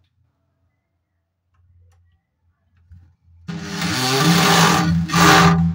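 Corded electric drill running at speed to drive a screw into a concealed steel cabinet hinge. It starts about three seconds in, eases off for a moment, then runs again in a second short burst near the end.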